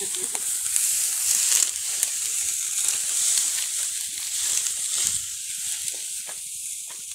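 Dry, cut wheat stalks rustling and crackling as they are gathered and bundled by hand, a continuous uneven hiss with a few sharper crackles.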